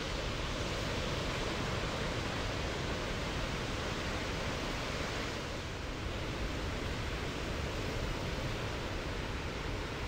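Ocean surf washing onto a beach: a steady, even rush of breaking waves.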